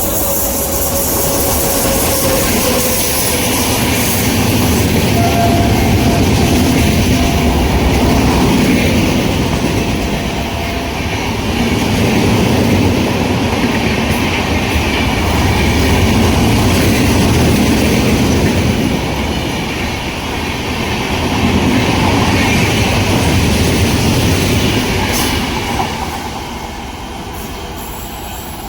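Express passenger train, hauled by a WAP7 electric locomotive, running through at speed with a loud rush and wheels clattering over the rails. The noise swells and eases in waves every few seconds, then drops somewhat near the end.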